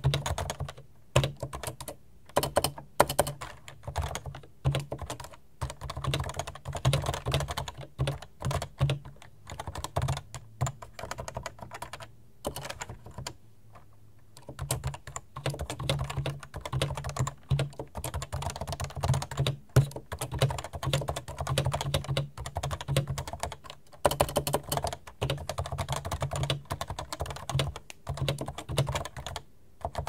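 Typing on a Realforce 87U tenkeyless keyboard with Topre switches: a quick, uneven run of key strokes, with a pause of about two seconds a little before halfway.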